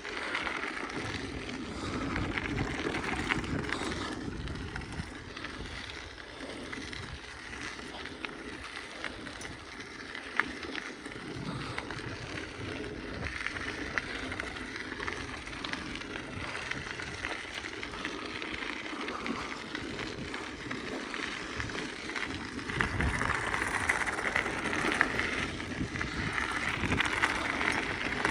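BMX bike rolling along the road: steady tyre and frame noise, with wind buffeting the microphone.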